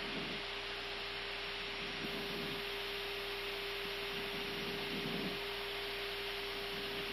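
Steady flight-deck noise of an Airbus A320 on final approach: an even airflow hiss with a steady hum.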